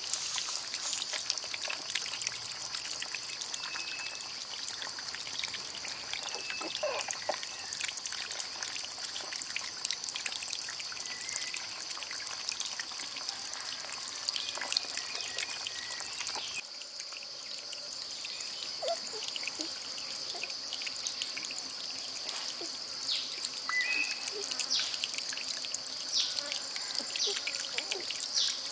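Outdoor natural ambience: a steady high-pitched hiss, many small clicks and ticks, and a few short bird chirps. The level dips suddenly a little past halfway.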